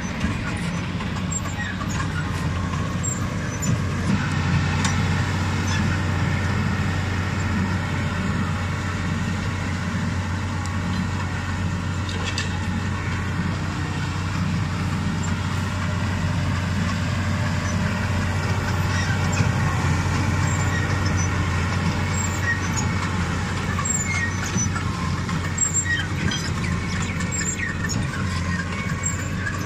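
Massey Ferguson 6485 Dyna-6 tractor's six-cylinder diesel engine running steadily under load, pulling a Krone Big Pack square baler at work.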